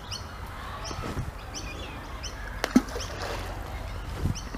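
A hand-thrown ball of groundbait landing in the lake with one sharp plop a little under three seconds in. A bird chirps again and again.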